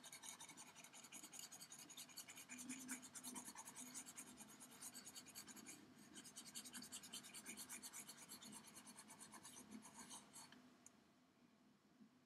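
Faint scratchy rubbing of a pointing device dragged across its pad in short, quick strokes as the Photoshop eraser is worked. It stops about eleven seconds in.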